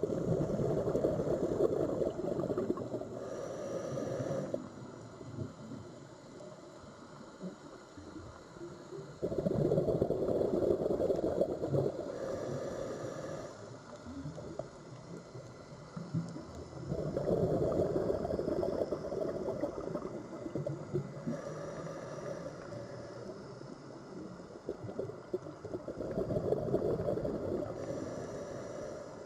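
Sea waves washing ashore, each surge rushing in and then ebbing away, four times about eight or nine seconds apart.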